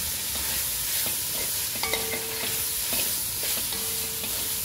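Chunks of meat sizzling and frying in hot oil in a large metal wok, stirred with a metal spoon that scrapes and clicks against the pan. A steady hiss runs under the scattered clicks of the spoon.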